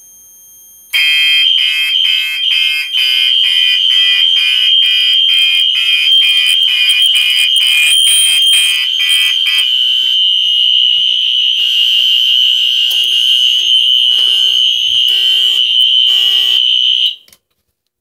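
A home-built fire alarm and suppression system's horns and sounders go off together as the manual-release heat detector trips and the panel goes straight into release. A steady high-pitched tone sounds with a pulsing horn over it at about three beats a second, turning irregular about ten seconds in. Everything cuts off suddenly near the end.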